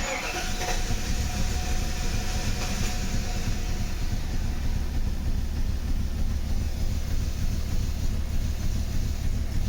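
Mercedes W124's M119 V8 engine running with a steady low rumble. The revs do not rise when the throttle is pressed: the engine is not responding to the gas.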